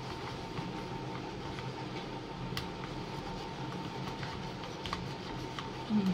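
Small wire whisk beating a thin yogurt and gram-flour batter in a plastic tub: faint, irregular clicks of the wires against the tub over a steady background hum.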